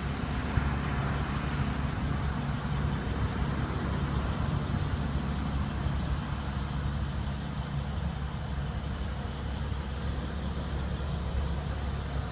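BMW X6 xDrive35i's 3-litre twin-turbo inline six idling steadily: an even, low engine hum from the exhaust.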